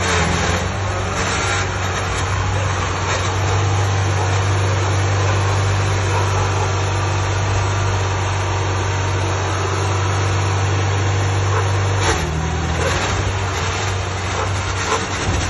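Kubota DC60 tracked combine harvester's diesel engine running steadily as the machine drives, a constant low hum. The note shifts briefly about twelve seconds in.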